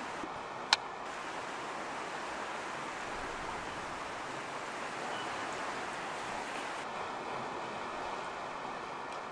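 Steady rush of sea surf washing below the cliffs, with a single sharp click under a second in.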